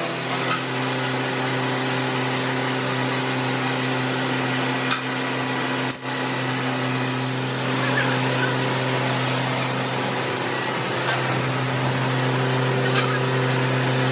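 Vertical lathe running steadily with a large steel wheel blank on its table: a constant low motor hum with a few short clicks.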